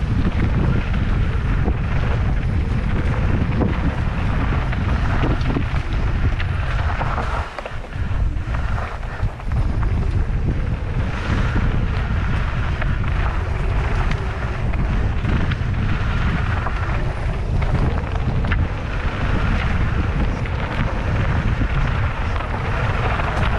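Wind rushing over a GoPro's microphone while a mountain bike rolls down a dirt forest trail, mixed with tyre noise on the dirt; it eases briefly about eight seconds in.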